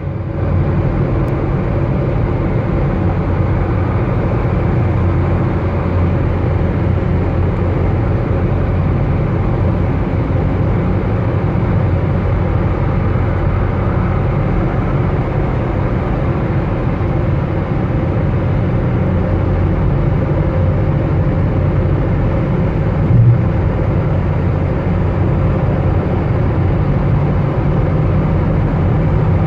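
Car driving at highway speed: steady engine and road noise with a deep low rumble, and a single brief bump about 23 seconds in.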